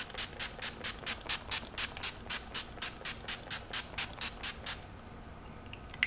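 NYX Dewy Finish makeup setting spray misted from its finger-pump bottle onto a face: about twenty quick, short pumps at four or five a second, stopping about five seconds in.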